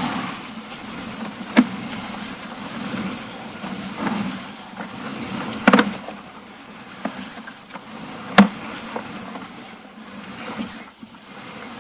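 Sewer inspection camera's push cable being fed through the drain pipe with a steady rustle, and three sharp knocks, the loudest near the middle and about two-thirds in.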